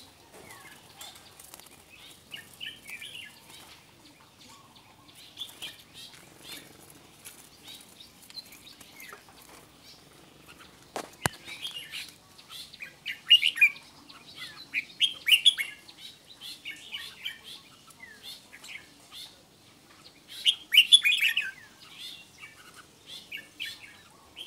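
Red-whiskered bulbuls singing bursts of short, chirpy whistled phrases, louder and busier in the second half, with one sharp click about eleven seconds in.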